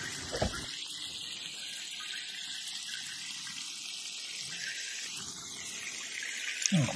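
Cream sauce simmering with a steady hiss in an enamelled cast-iron pot around a pheasant, with milk poured in from a carton near the end.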